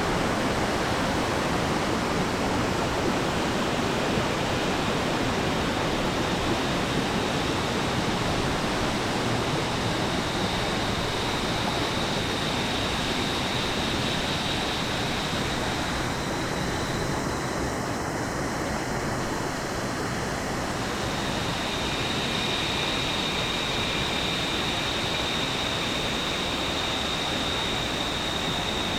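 Steady rushing of a jungle waterfall, an even noise of falling water. A thin, steady high tone joins about ten seconds in, drops out briefly past the middle, then returns.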